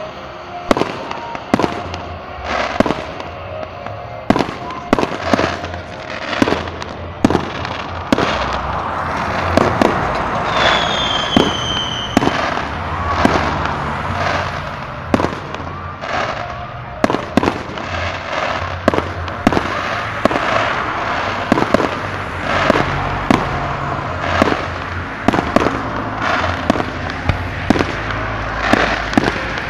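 Fireworks display: aerial shells bursting in a steady run of sharp bangs, about one or two a second at uneven spacing. A brief high whistle sounds about ten seconds in.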